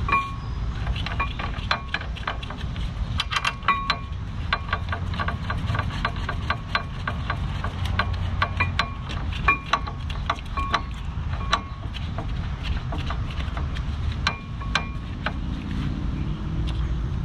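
Metal parts and tools clinking and tapping irregularly while a brake caliper and its bolts are handled, each click with a brief metallic ring. A steady low rumble runs underneath.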